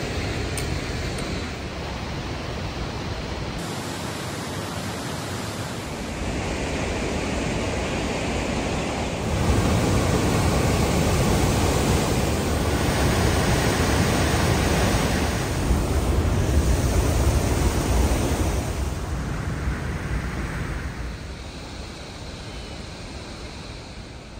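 Mountain river rushing over boulders, a steady roar of white water. It swells louder for a stretch in the middle and eases back near the end.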